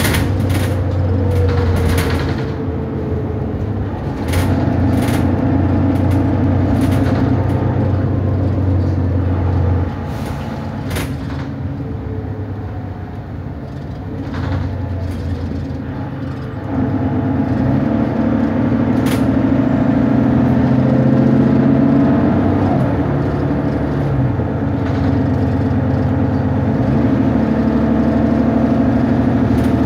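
Inside a Mercedes-Benz Citaro diesel single-deck bus: the engine drones and the body rattles as it drives. It runs quieter for several seconds around the middle, then pulls harder just past halfway, the engine note rising and stepping through gear changes. A few short, sharp hissing clicks come in the first seconds and twice more later.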